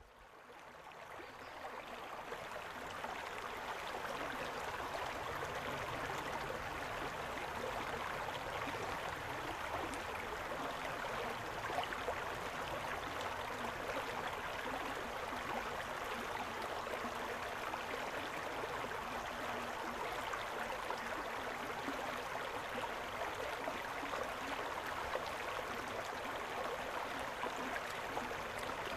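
Shallow rocky stream running over a riffle of stones: a steady rush and babble of water. It fades in over the first few seconds, then holds even.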